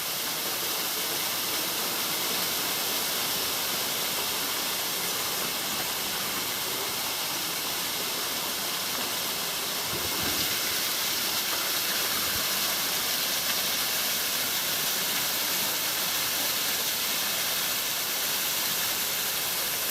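Water of a small cascading waterfall rushing steadily over rock, a little louder in the second half.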